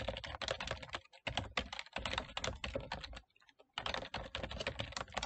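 Typing on a computer keyboard in quick runs of keystrokes, with two brief pauses, about a second in and just after three seconds.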